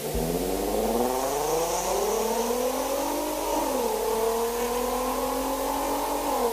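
Volkswagen Golf R32's 3.2-litre VR6 engine and exhaust accelerating, the engine note rising steadily for about three seconds, dipping briefly in pitch, then holding a steady note.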